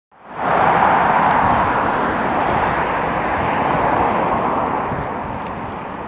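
Road traffic passing on a multi-lane street: a steady rush of car tyres and engines, easing off slightly near the end.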